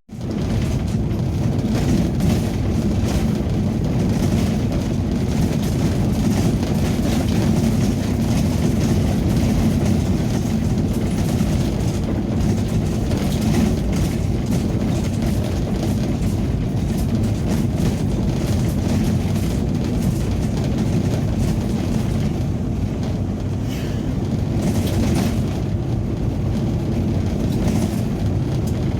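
Ambulance engine and tyre noise heard from inside the cab while driving steadily, with many small knocks and rattles over the road surface.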